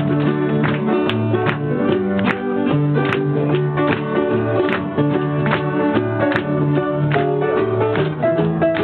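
Live acoustic string band playing an instrumental passage: mandolin and archtop guitars strumming a steady beat over a bass line.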